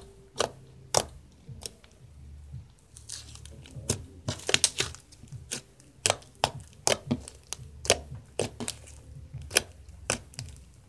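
Thick green floam butter slime, made with foam beads and modelling clay, squished and poked by hand: irregular sharp wet pops and crackles, thickest about four to five seconds in.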